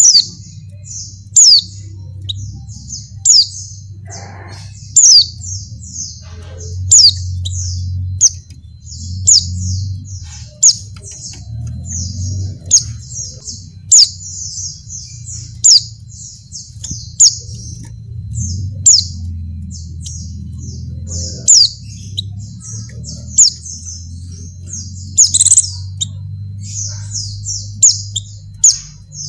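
Pleci (white-eye) chattering in a rapid run of high chirps, with a loud, sharp, downward-sliding note about every one and a half to two seconds, over a steady low hum. The uploader presents it as a female pleci in heat calling to a male, used as a lure call.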